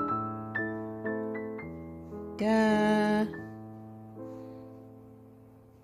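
Gentle background piano music, single notes ringing and fading, with one louder held note with a slight waver about two and a half seconds in; the music then fades away.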